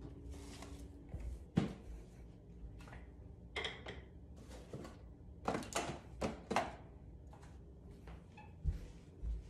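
Household handling noises: a series of knocks and clatters as things are picked up and set down, with one loud thump about a second and a half in and a quick run of clacks a little past the middle.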